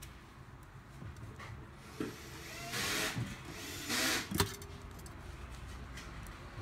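Parts of a watch winder handled during reassembly: two short scraping, rubbing sounds about three and four seconds in, the second ending in a sharp click.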